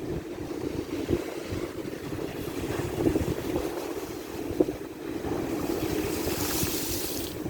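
Ocean waves washing in, with wind rumbling on the microphone; a hissing rush of surf builds about six seconds in and stops abruptly near the end.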